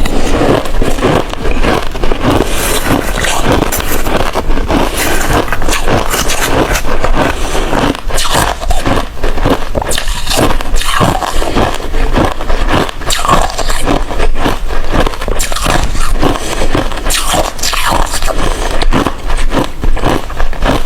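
Hard ice being bitten and chewed close to the microphone: a dense, unbroken run of irregular crunches and cracks.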